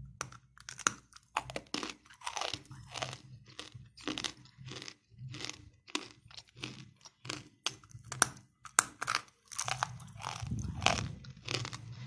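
Roasted clay being chewed: a rapid run of sharp, dry crunches, about three a second, some much louder than others.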